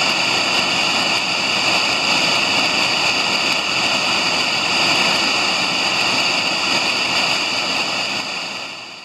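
Water pouring over a small concrete weir into a pool: a steady rushing that fades out near the end.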